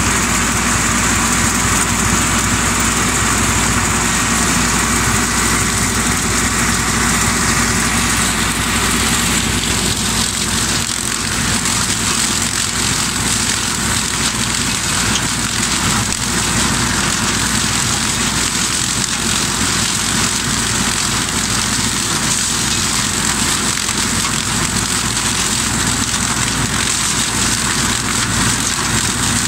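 Ursus C-355 tractor's four-cylinder diesel engine running steadily under load, driving a Čalopek RM150 rotary mulcher through the PTO. Under the engine is a continuous rushing hiss from the mulcher shredding dry corn stalks; the sound shifts slightly about ten seconds in.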